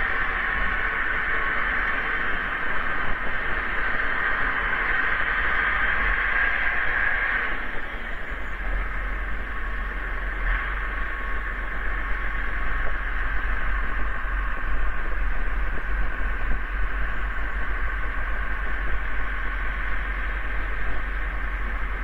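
Steady hiss with a low electrical hum: the self-noise of a surveillance webcam's microphone, with no animal sounds.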